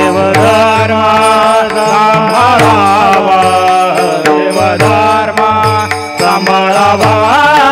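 Marathi devotional kirtan singing: a voice sings an ornamented melody over a steady rhythm of small hand cymbals (taal) and a drum beat.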